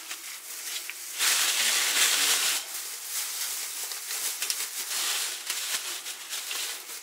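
Thin plastic bags crinkling and rustling as pieces of salted pork fat are packed into them by hand. A louder stretch of rustling starts about a second in and lasts about a second and a half, then lighter crinkling continues.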